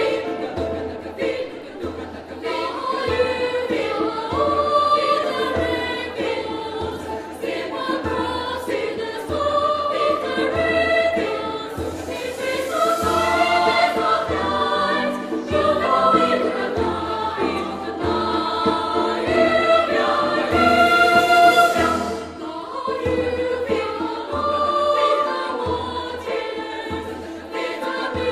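Girls' choir singing in several parts with grand piano accompaniment, over a steady low pulse.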